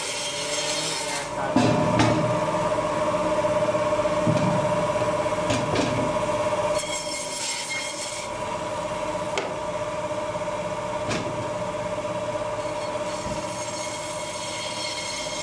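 Electric meat band saw running with a steady hum while its blade cuts through a carcass's bone and ribs. The sound is louder from about a second and a half in until about seven seconds in, while the saw works through the thick part of the carcass, then lighter as smaller rib sections are cut, with short hissy passes near the end.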